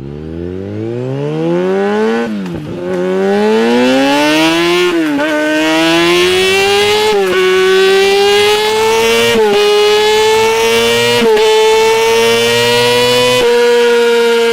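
Kawasaki ZX25R's 250 cc inline-four accelerating hard through the gears. The engine's high-pitched whine climbs, dips briefly at each upshift about every two seconds, and climbs again, ending held at high revs.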